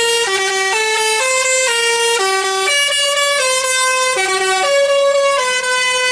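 Bus telolet horn playing a tune: a run of loud multi-tone air-horn notes, about two a second, stepping up and down in pitch.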